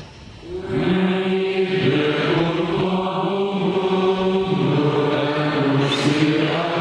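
A group of voices, the celebrating priests among them, singing a liturgical chant in unison at Mass, entering about a second in and moving slowly from one held note to the next.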